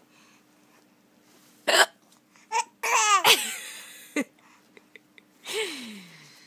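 A baby hiccups, a short sharp hic nearly two seconds in, followed by brief laughing and babbling vocal sounds, one about three seconds in and a breathy falling one near the end.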